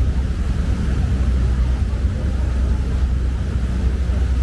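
Steady low rumble of a lake passenger boat under way, its engine running at an even pace.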